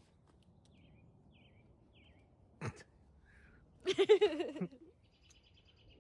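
Faint bird chirps, a single knock about two and a half seconds in, then a short, wavering, pitched sound lasting under a second at about four seconds in, the loudest thing heard.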